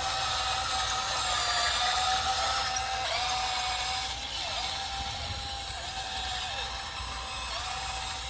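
Small electric motor of a radio-controlled toy construction vehicle whining steadily, its pitch dipping briefly about every second or so as it is worked.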